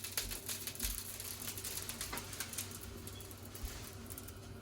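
Bacon lard and onion frying in a pan, with fat crackling in quick, irregular pops.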